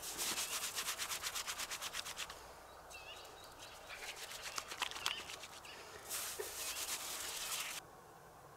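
Rapid rasping scrapes, about ten strokes a second, for the first two seconds, then rougher intermittent scraping, and a longer continuous scrape that cuts off suddenly near the end.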